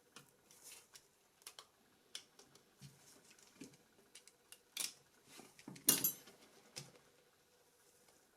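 Irregular small clicks and taps of a mobile phone's parts and small tools being handled during disassembly, with two louder clicks around five and six seconds in.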